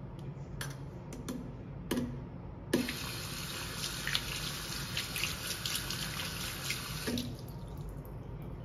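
A water tap turned on with a knock and left running into a basin for about four and a half seconds, then shut off with another knock. A few light clicks come before it.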